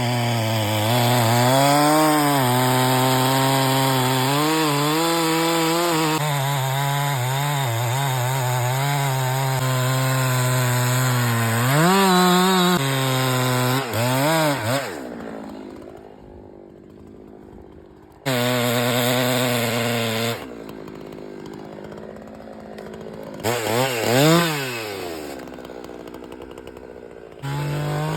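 Husqvarna chainsaw cutting wood at full throttle, its engine pitch sagging and recovering as the bar bites into the cut. About halfway through it revs briefly and drops to a much quieter idle. It then comes back under throttle several times, with a short rev about three-quarters of the way in.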